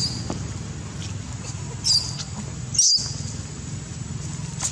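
Baby macaque monkey giving short, high-pitched squeaking cries, three in all: one at the start and two about two and three seconds in, over a steady low hum.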